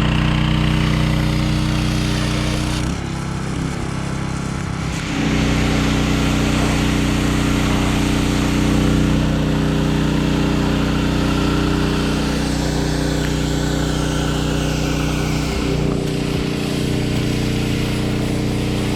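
Small gasoline engine of a pressure washer running steadily. Its pitch sags briefly about three seconds in and again near the end, then recovers.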